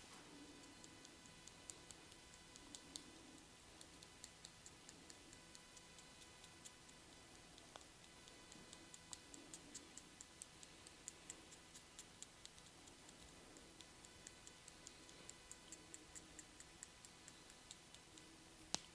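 Faint, quick light clicks or ticks, roughly three a second and somewhat uneven, with one sharper click near the end.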